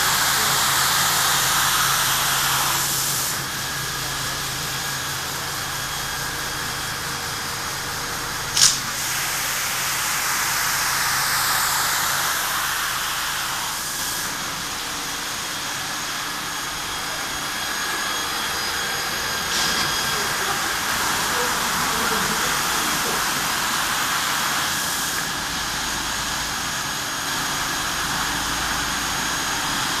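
Hanta Systems AMP-02 automatic carpet-washing machine running: a steady hiss of water jets spraying from its nozzles onto the rug over machine noise, the hiss swelling and easing a few times. One sharp click about nine seconds in.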